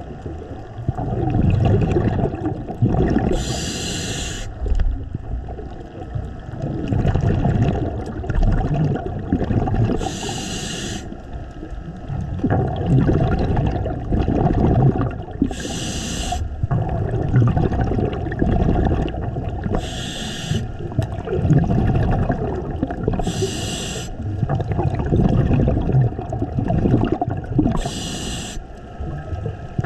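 Scuba diver breathing through a regulator underwater: six short hissing inhalations, four to six seconds apart, with low gurgling exhaled bubbles between them.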